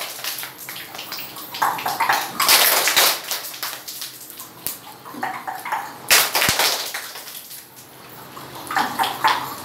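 A group of children making sounds with their hands together, clapping and rubbing their palms, in uneven surges of rushing noise with a few sharp claps.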